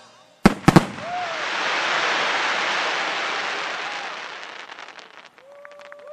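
Aerial firework shells bursting: three sharp bangs in quick succession about half a second in. A long crackling tail of glittering gold stars follows and slowly fades over about four seconds.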